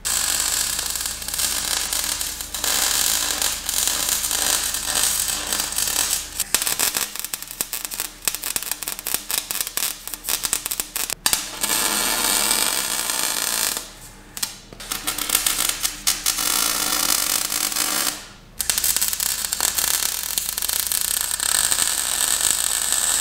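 Electric arc welding on a steel frame: a steady, dense crackling sizzle from the arc. It stops briefly twice, about 14 and 18 seconds in, between welds.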